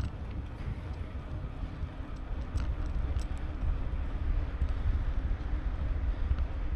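Wind noise on the microphone of a moving bicycle, with steady riding noise and a few faint ticks.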